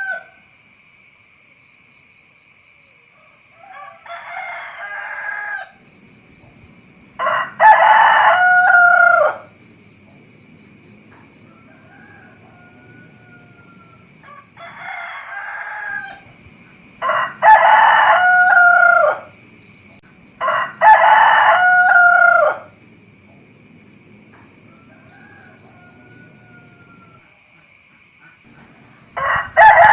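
Rooster crowing three times, each crow about two seconds long, with softer calls in between. Insects chirp steadily in a fast pulsing rhythm behind it.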